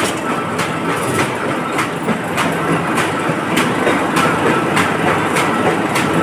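Paper-plate raw-material sheet machine running: a steady mechanical noise with a regular clack about every 0.6 seconds as its rollers and conveyor turn out sheets.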